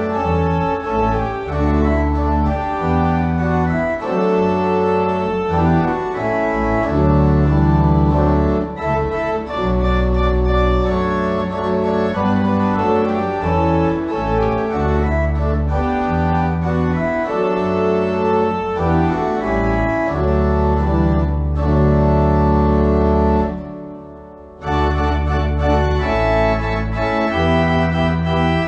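Church organ playing a postlude at the end of the service: sustained chords over long, deep pedal bass notes. It breaks off briefly about 23 seconds in, then resumes.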